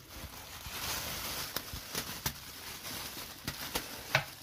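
Thin clear plastic shower cap rustling and crinkling as it is handled, with scattered sharp crackles, the loudest near the end.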